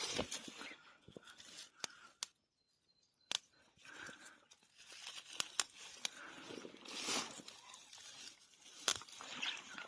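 Rustling through undergrowth with scattered sharp snaps, typical of fiddlehead fern shoots being snapped off by hand and handled.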